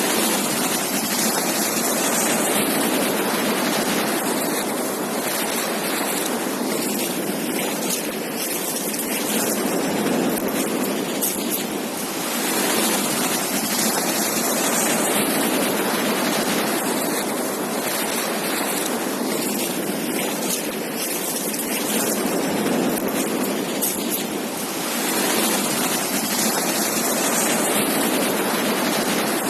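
Ocean surf on a beach: a continuous rush of breaking and washing waves that swells and eases about every twelve seconds.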